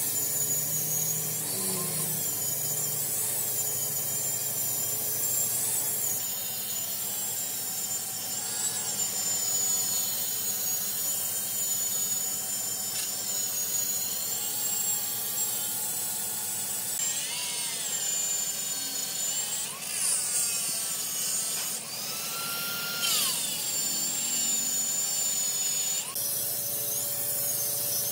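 Power tool working wood, a high-pitched motor whine over hiss. It changes abruptly about six seconds in and again near the end, and rises and falls in pitch several times in the second half.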